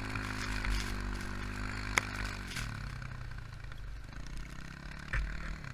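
Quad (ATV) engine running as it pulls away, its pitch dropping about halfway through and growing fainter. A sharp click about two seconds in.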